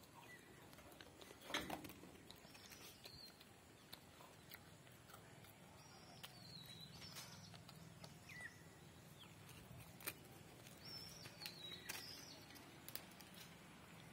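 Quiet ambience with faint, scattered bird chirps and a few soft clicks and knocks. The loudest knock comes about a second and a half in.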